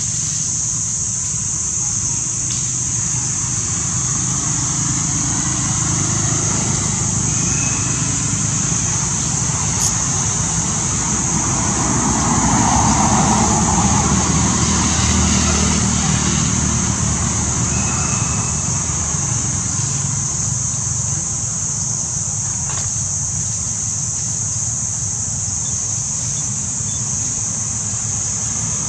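Outdoor ambience: a steady high-pitched drone over a low engine rumble of motor traffic. The rumble swells and fades again about twelve to sixteen seconds in, as a vehicle passes.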